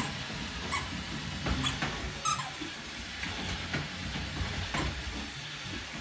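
Roomba robot vacuum running, a steady whirring hiss with a low hum, with scattered light clicks and taps.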